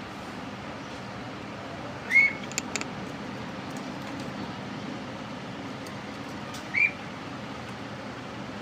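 A bird giving two short whistled calls, each a quick curving note, about four and a half seconds apart, over a steady background rumble; a few sharp clicks follow just after the first call.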